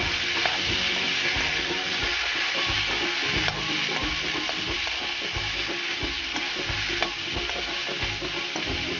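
Boiled black chickpeas sizzling in hot oil in a kadai as a metal spatula stirs them, with a steady sizzle and scattered scrapes and clicks of the spatula against the pan. The salt is being mixed into the chickpeas and tempering.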